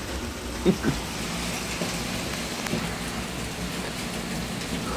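Steady rain falling, an even hiss, with one brief short sound less than a second in.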